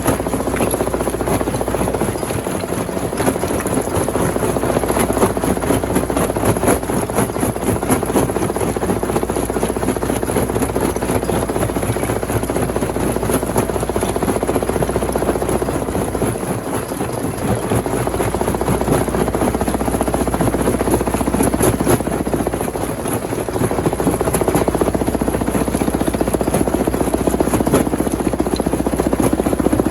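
Rock crusher running under load, a continuous dense clatter of stones being broken over a steady low hum that drops away briefly twice.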